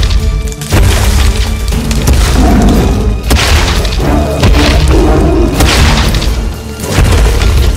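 Loud, dramatic background music over a deep rumbling low end, with repeated heavy booming hits.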